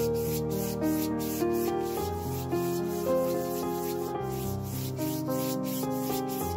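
Background music of held notes, changing about every half second, over the scratchy rubbing of a stiff bristle brush scrubbing acrylic paint across textured canvas in repeated strokes.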